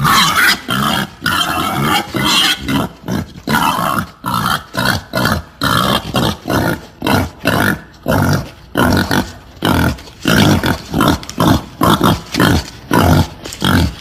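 Female wild boar grunting in a rapid, steady series, about two grunts a second.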